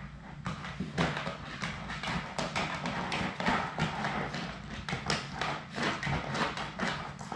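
Labrador retriever puppies eating from a bowl: quick crunches and clicks, several a second, as they chew and knock the bowl.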